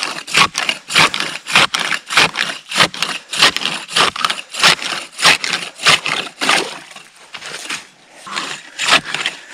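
Hand ice saw cutting through lake ice in quick, rhythmic rasping strokes, about three a second. The strokes slacken and fade around seven seconds in, then pick up again near the end as the block is cut free.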